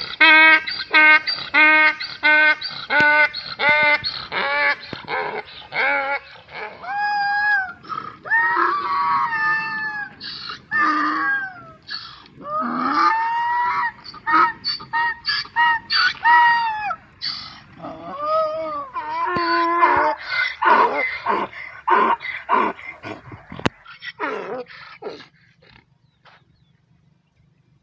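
Donkeys braying: at first a fast run of short hee-haw pulses, about three a second, then longer drawn-out brays, then more quick pulses before the braying stops near the end.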